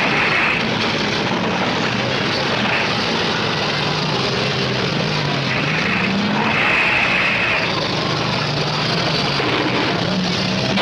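Many car engines running and revving together in a demolition derby heat: a dense, steady din whose engine pitch wanders up and down.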